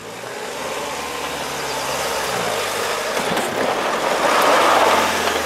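Mahindra XUV-500 AWD with its diesel engine pulling up a loose dirt climb, tyres churning through the dust and dirt. It grows steadily louder as it comes close and passes, loudest near the end.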